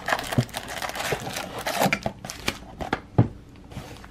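Crinkling and tearing of the packaging on a trading-card blaster box as it is opened by hand. Irregular crackles, with one sharper snap about three seconds in.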